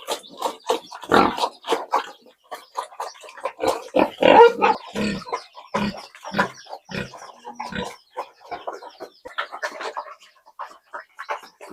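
Pigs grunting in a quick run of short calls, several a second, loudest around the middle.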